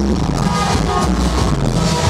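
Loud electronic dance music with a steady beat and heavy bass, played from a DJ mixer through a sound system.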